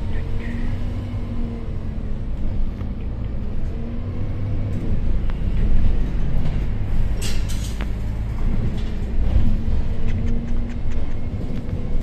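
Volvo Caio Procity city bus's engine running as the bus drives, with steady road rumble and small rattles. A short hiss comes about seven seconds in.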